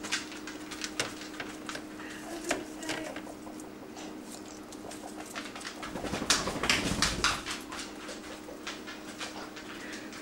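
Guinea pig pups scrabbling and rustling through dry hay bedding, with soft short calls now and then. The rustling grows louder and fuller for about a second and a half, starting about six seconds in.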